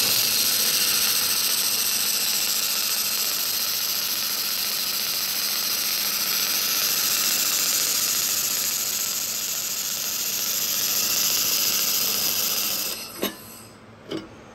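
Handheld fiber laser welding head welding a steel T-joint: a loud steady hiss that cuts off about 13 seconds in, followed by two short clicks.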